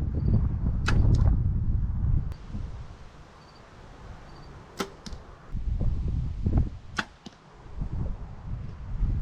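Arrows with broadheads shot from a bow at a target: several sharp snaps of shot and hit, with strong wind rumbling on the microphone between them.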